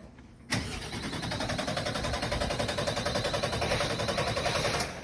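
A bin lorry's diesel engine cranked on its starter motor, a fast even churning that starts suddenly about half a second in and stops abruptly after about four seconds without the engine catching: the lorry fails to start.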